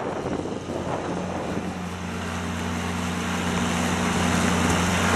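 John Deere 319D tracked skid steer's diesel engine running, with a steady low hum that settles in about a second in and grows gradually louder.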